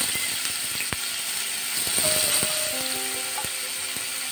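Chopped onions sizzling in hot oil in a nonstick wok, a steady hiss broken by a few sharp clicks. Faint background music with held notes plays under it.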